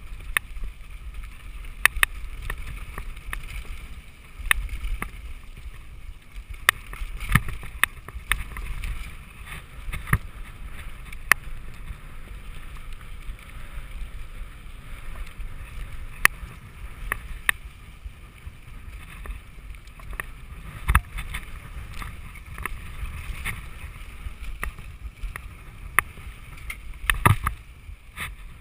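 Mountain bike riding fast down a dry dirt and gravel trail, picked up by a camera on the rider: a steady low rumble of tyres and wind, broken by irregular sharp knocks and rattles as the bike jolts over stones and bumps.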